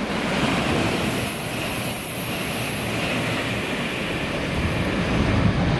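500 series Shinkansen running through a station at speed: a steady rush of wind and rolling noise, with a faint high whine.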